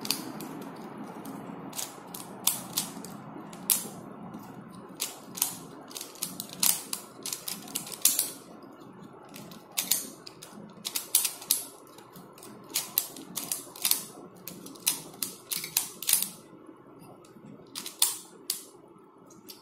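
Plastic Pyraminx puzzle being turned by hand, its pieces clicking sharply at an irregular pace, often several in quick succession, stopping near the end.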